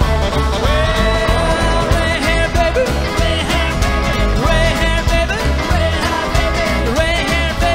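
Live rockabilly band playing a steady driving beat: a Gretsch hollow-body electric guitar, an acoustic guitar, an upright double bass and drums.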